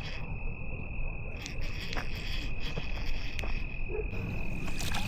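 Crickets chirring in one steady high trill, over a low rumble, with a few faint clicks.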